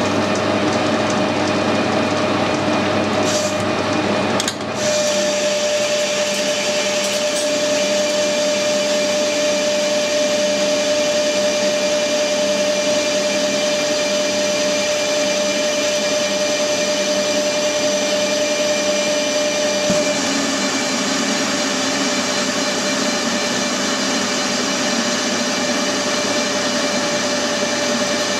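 Metal lathe running with a carbide-insert tool turning a bar down to diameter: a steady machining noise with a constant whine through it, easing briefly about four and a half seconds in.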